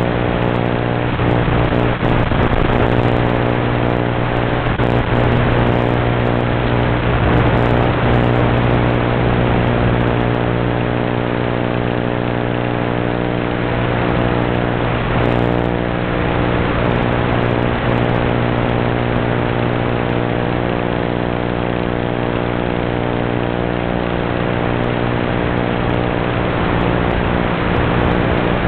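UMX Turbo Timber micro RC plane's brushless electric motor and propeller running steadily in flight, a hum at one pitch with a rush of wind noise, picked up by the plane's onboard FPV camera microphone.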